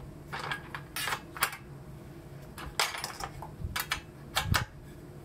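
A metal spanner clinking against the aluminium mounting rails and clamp bolts while the solar-panel mounting bolts are tightened: a series of irregular sharp metallic clicks.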